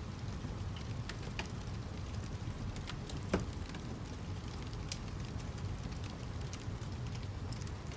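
Wood fire crackling: a steady low rumble with scattered sharp snaps and pops, one louder pop about three seconds in.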